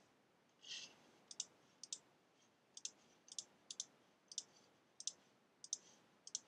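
Faint clicking of a computer pointer button, each click a quick press-and-release pair, about two a second from about a second in, after a short soft rustle near the start.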